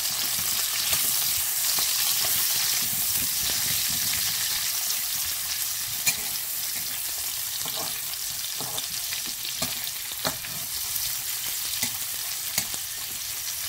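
Sliced onions sizzling steadily in hot oil in a kadai, with a few sharp clicks and scrapes of a metal spatula stirring them against the pan.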